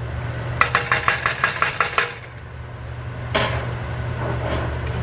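A quick run of about ten light taps of a spatula against the rim of a metal pan, each with a short ring, lasting about a second and a half. A brief rushing noise follows about three seconds in, over a steady low hum.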